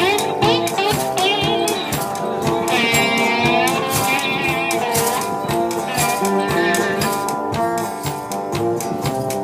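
Live blues band playing an instrumental passage: amplified guitars, one of them a homemade 'turbo guitar' built from a metal air-filter canister, with bending, wavering notes over a steady rattling beat.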